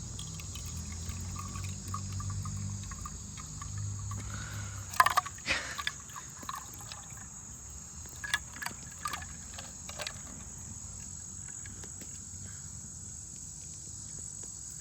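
Crickets chirping in a steady high drone. For the first four seconds or so a low hum sits under it, and several sharp clicks and knocks come between about five and ten seconds in.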